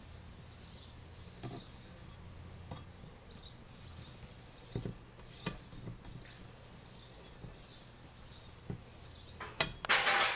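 Faint rubbing as an alcohol prep pad wipes down a running board's step surface, with a few light taps and knocks. A louder, short scuffing knock comes near the end.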